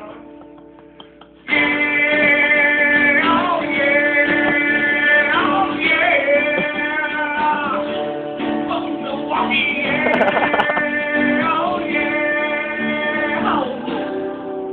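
Guitar playing with a voice singing over it. Both come in loud about one and a half seconds in, after a short quiet stretch, and the voice slides up and down in pitch several times.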